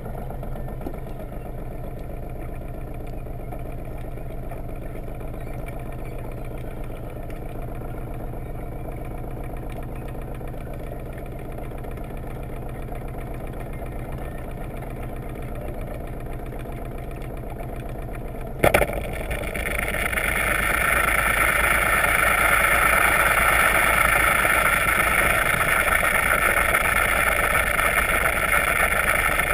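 Yacht's inboard engine idling, heard underwater as a steady low hum while the folding propeller is not turning. About nineteen seconds in there is a single sharp knock, and after it a louder, higher rushing noise comes in and holds.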